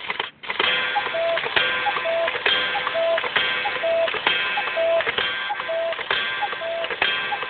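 Song intro music: a repeating, clock-like ticking figure of struck, ringing notes, about one beat a second, with a short higher note between the beats.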